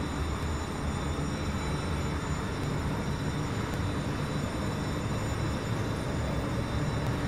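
Steady cabin noise inside an MTR Kwun Tong line Q-Train: a low rumble with an even hiss above it and a couple of faint, thin, high steady tones.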